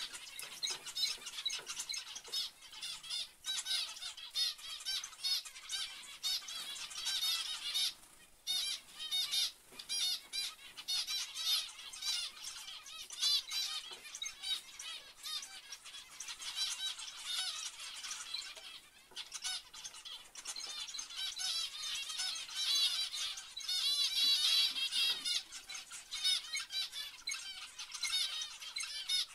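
A flock of zebra finches calling: many short calls overlap in a continuous chatter, which thins briefly about eight seconds in and again a little before twenty seconds.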